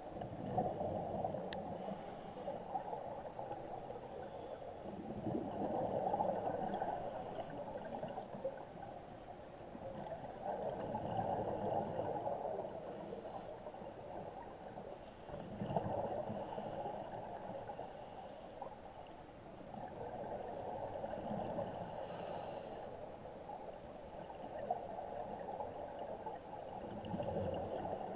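Scuba diver breathing through a regulator underwater: rushing, gurgling swells of exhaled bubbles about every five seconds.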